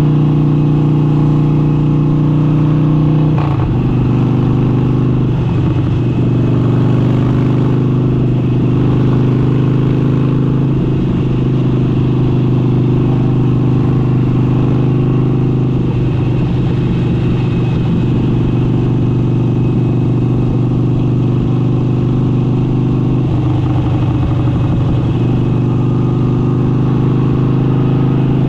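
Harley-Davidson Forty-Eight's air-cooled V-twin running steadily through an aftermarket exhaust, its pitch stepping down slightly about three and a half seconds in.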